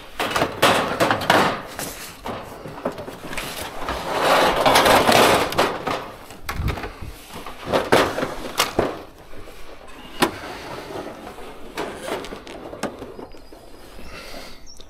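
Metal shelf panels scraping and clattering against chipboard offcuts and the skip as they are dragged out by hand. There is a long scrape a few seconds in and a few sharp knocks later on.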